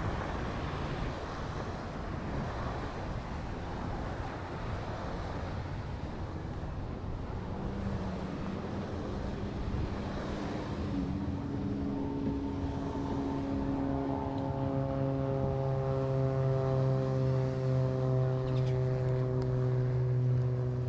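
Surf and wind noise, then partway through a motor's drone comes in: a steady hum with overtones that holds on and slowly falls in pitch, like an engine going past.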